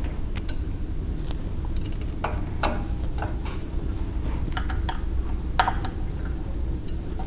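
Scattered light metallic clicks and clinks of bolts and tools being handled while the belt grinder is bolted back onto its surface grinder mount, over a steady low background rumble.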